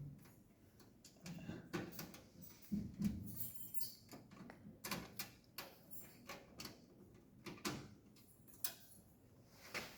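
Irregular clicks, knocks and rattles of a screwdriver and screws working against a desktop computer's metal casing as the power supply unit is screwed back in place.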